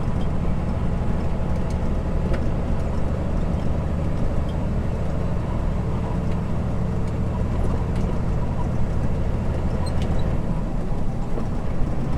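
Semi-truck's diesel engine running steadily with road noise, heard from inside the cab while cruising.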